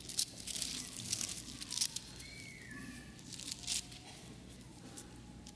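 Bible pages being leafed through and turned: a run of quick papery rustles and crinkles for the first four seconds or so, then quieter.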